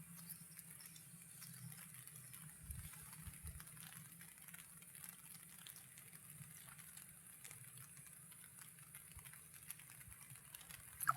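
Faint light rain pattering, with scattered small ticks over a steady low hum and hiss.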